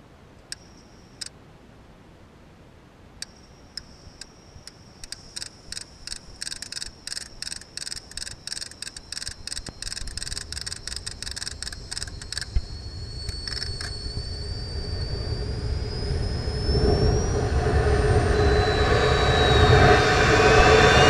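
Onboard audio from a sounding rocket's nose-mounted camera. Sharp clicks start sparse, then repeat quickly for several seconds. They give way to a rushing rumble with gliding whistles that builds steadily louder toward the end.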